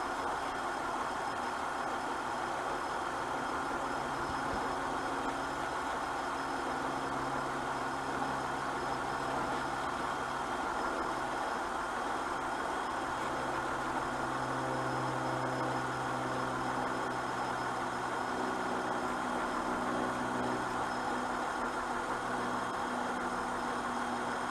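2004 Honda Pilot's 3.5-litre V6 idling steadily, the engine that is being checked for a misfire.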